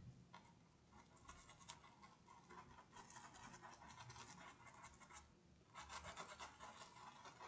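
Faint scratching of a small paintbrush scrubbed in quick circles over a cotton tea towel, working white paint into painted clouds, with a short pause about five seconds in.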